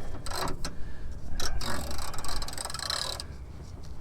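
Socket ratchet clicking and metal grating as a seized, rusted bolt is forced round by hand, with a dense run of rapid clicks in the middle that fades near the end.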